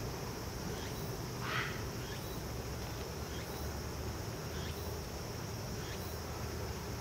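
Insects chirping steadily in a continuous high trill, with one short louder sound about a second and a half in.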